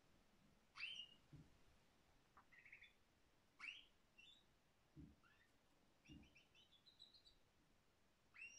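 Domestic canary singing faintly: sharp rising chirps about every three seconds, with short runs of quick notes between them. A few faint low thumps come in between.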